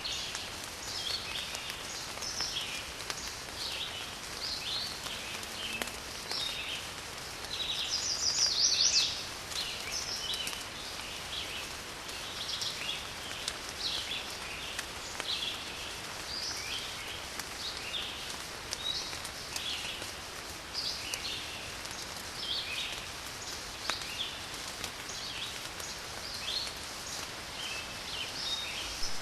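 Steady rain with many birds chirping over it, short calls repeating throughout, and one louder burst of calls about eight seconds in.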